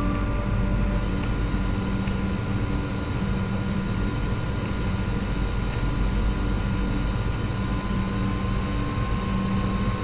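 A steady low droning hum with a few faint held tones above it.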